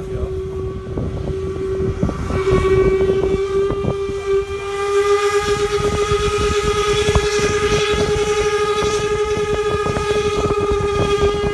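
Paddle steamer's steam whistle sounding one long, steady blast, growing fuller and louder about two and a half seconds in.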